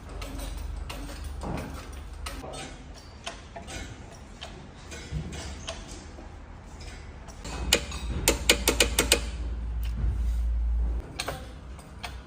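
Hand tools clicking and clanking on metal as new suspension bushings are fitted to a BMW, with a quick run of about eight sharp clicks about eight seconds in, over a steady low hum.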